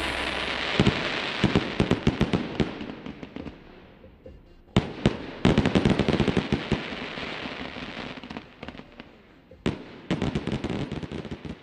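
Fireworks going off in dense crackling volleys. Sharp bursts come about five seconds in, again half a second later, and near the end, each followed by rapid crackling that dies away.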